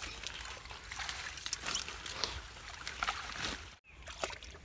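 Small irregular splashes and trickling water, with the rustle of wet water hyacinth and cast net mesh being pulled about by hand in shallow muddy water. The sound cuts out briefly a little before the end.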